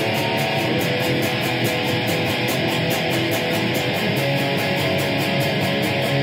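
Electric guitar strumming chords with a thick, distorted tone at a steady loudness and no breaks between chords.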